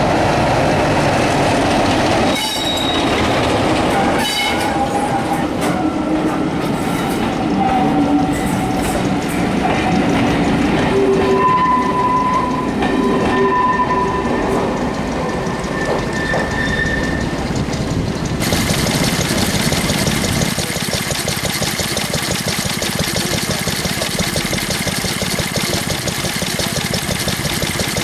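Class 33 diesel locomotive and its coaches pulling away: a low diesel rumble and wheels clattering over rail joints, with a few brief high tones in the middle as the train draws off. About two-thirds through, the sound changes abruptly to a small vintage stationary engine running steadily, driving a water pump.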